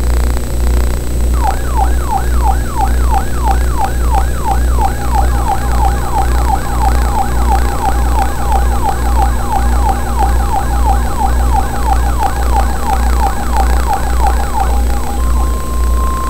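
Electronic alert siren of an Emergency Alert System broadcast: rapidly repeating falling sweeps, about three a second, that stop about a second before the end. A steady high alert tone takes over, at the pitch of the 1050 Hz weather-radio warning tone. A loud low mains hum runs underneath.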